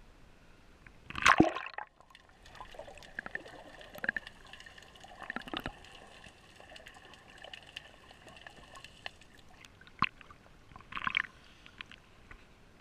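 Sea water splashing and gurgling loudly as an action camera plunges beneath the surface about a second in, then muffled underwater sound with scattered sharp clicks, and a second splash as the camera breaks back out of the water near the end.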